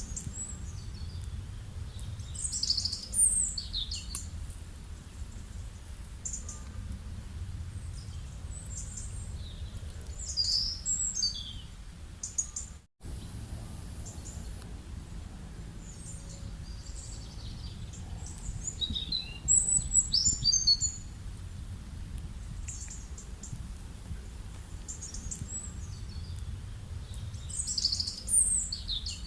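Songbirds calling in short clusters of high chirps and quick sweeping notes, roughly every eight seconds, over a steady low rumble. The sound drops out completely for an instant about a third of the way through.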